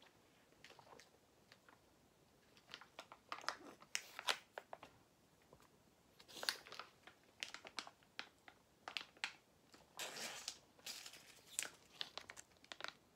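Plastic juice pouch crinkling and crackling in the hands as it is squeezed and drunk from, with irregular crackles and a few denser stretches.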